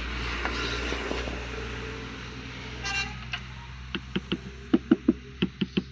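A brief vehicle horn toot about three seconds in, over a steady low hum. Then, from about four seconds in, a quick run of sharp, ringing taps, several a second.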